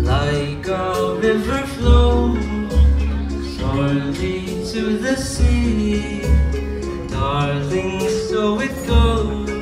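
A young man singing live into a handheld microphone over a recorded backing track played through the PA, with loud, deep bass notes.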